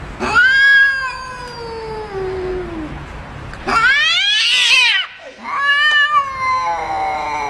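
Domestic cat giving three long, drawn-out meows. The first is a slow, falling call of nearly three seconds, and the second is higher and brighter.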